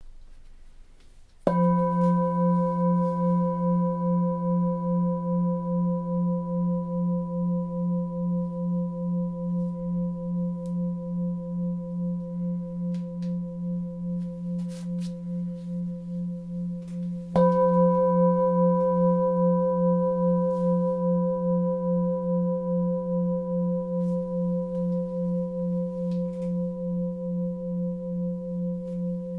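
Etched singing bowl of about 2.1 kg, pitched near F3 (177 Hz), struck twice, the second time about 16 seconds after the first. Each strike rings on as a deep hum with higher overtones, pulsing slowly and evenly as it fades.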